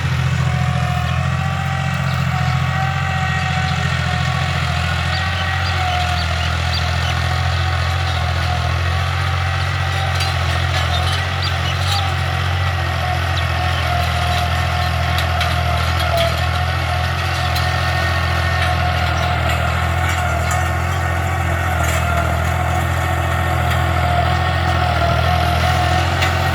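Tractor engine running steadily under load while pulling a plough through a field.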